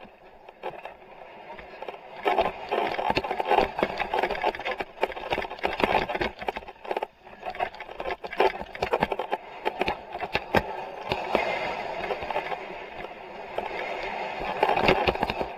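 Mountain bike clattering down a rocky dirt trail, many sharp knocks and rattles over a steady rush of riding noise, starting about two seconds in.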